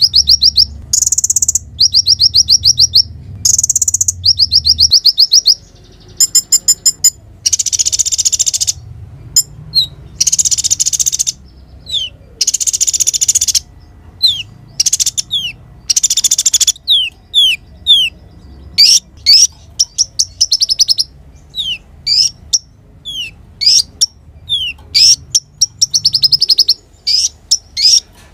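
Crimson sunbird (konin) singing vigorously: rapid high trills, buzzy phrases and many sharp slurred chips in quick bursts with short gaps between them.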